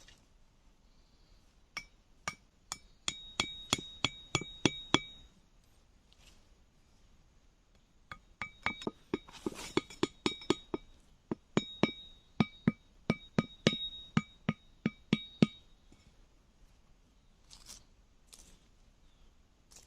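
Repeated sharp tool strikes with a clear metallic ring, about three a second, in three runs with short pauses between.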